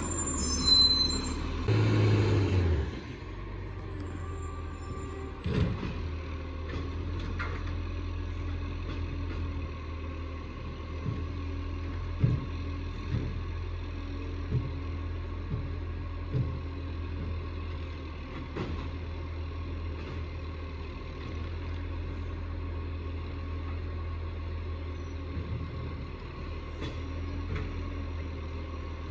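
Diesel garbage truck running close by for the first few seconds, with a brief hiss near the start, then a distant garbage truck's engine running steadily, with scattered short knocks.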